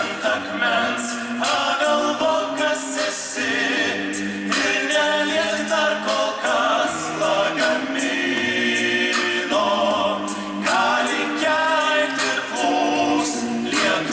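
Male vocal ensemble singing a cappella: several men's voices in harmony, amplified through handheld microphones.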